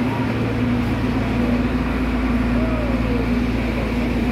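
Steady low hum of a stationary Materfer Alerce diesel railcar idling, with faint chatter of people around it.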